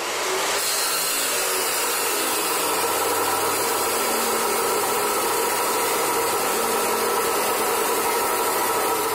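Abrasive chop saw's cut-off wheel grinding steadily through a steel pipe.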